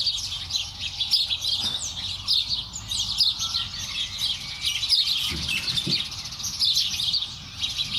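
A flock of young chickens peeping and cheeping in a continuous dense chatter of high chirps, with a couple of lower, short calls about five and a half to six seconds in.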